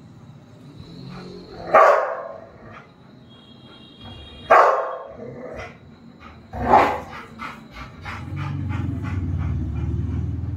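Rottweiler barking up at a pigeon perched out of reach: three loud single barks a couple of seconds apart, then quicker, softer sounds and a low continuous rumble for the last two seconds or so.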